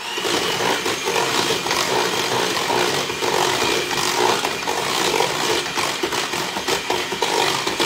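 White handheld electric mixer running steadily, its beaters churning thick pumpkin bread batter in a stainless steel bowl to beat in an egg.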